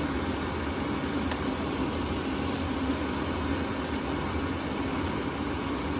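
Vegetables stir-frying in a hot wok: a steady sizzle over a constant low rumble.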